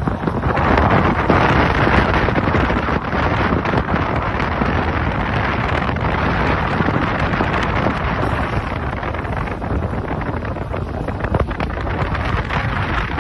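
Wind buffeting the microphone over the steady rush of sea water along the side of a fishing boat; the noise is a little louder in the first few seconds.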